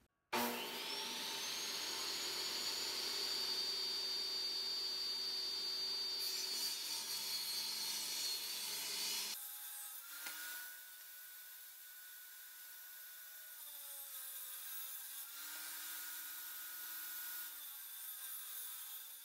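Portable table saw starting up with a rising whine that settles into a steady high whine, then cutting through a board with a loud, dense rush of noise. A little past halfway the sound drops to a quieter, thinner run of the saw, its pitch sagging briefly a few times as the blade takes the cut.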